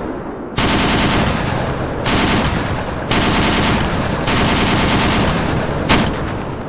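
Automatic gunfire in about four bursts, each lasting a second or so and starting abruptly, then a single sharp shot near the end that trails away.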